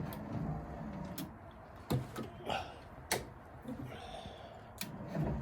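Scattered sharp clicks and light knocks, about five over the few seconds, with a short scrape shortly before the end: hands working parts of a car's pop-up headlight mechanism.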